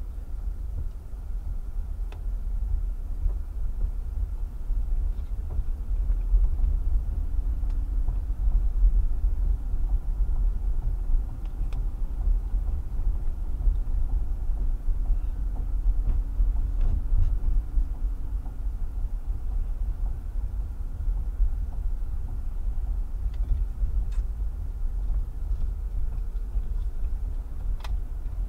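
Low, steady in-cabin rumble of a 2010 Toyota Camry driving slowly on a wet street, heard through the dashcam's microphone, with a few faint ticks now and then.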